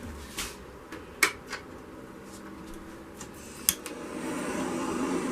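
A few light clicks and taps. About four seconds in, a handheld torch lights with a click and settles into a steady hissing flame, used to pop air bubbles in wet poured acrylic paint.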